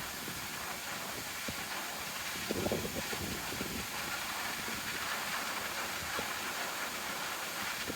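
A steady hiss, with a few faint ticks.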